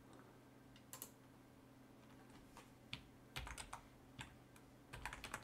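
Faint computer keyboard typing: a few scattered keystrokes, then quicker runs of keys past the middle and again near the end.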